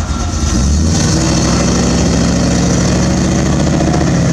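Classic car engine running close by as the car pulls out, its low steady rumble growing louder and steadier about a second in.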